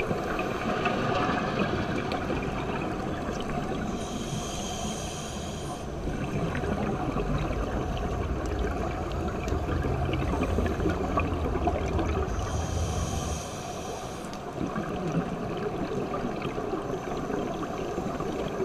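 Underwater scuba ambience heard through a GoPro's waterproof housing: a diver's regulator hissing on each inhalation, about four and thirteen seconds in, and exhaust bubbles gurgling and rumbling in between, over a steady water hiss.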